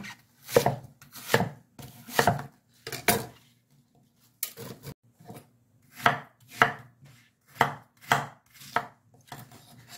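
Chef's knife cutting a quarter apple and then a quarter pear into chunks on a round wooden chopping board: about a dozen separate knocks of the blade through the fruit onto the board, with a pause of about a second near the middle.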